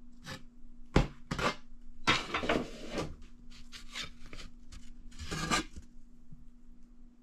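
Thin quilted maple drop tops being flexed and shuffled by hand, the sheets rubbing and clacking against each other in a run of short scrapes, with a sharp knock about a second in.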